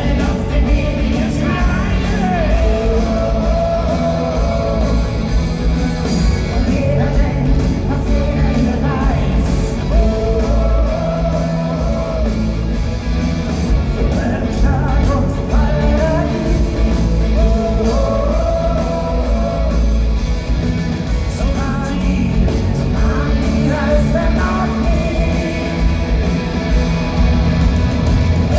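Live rock band playing at full volume: electric guitars, bass and drums with a lead vocal, several long held sung notes coming back every few bars. The sound carries the echo of a large concert hall.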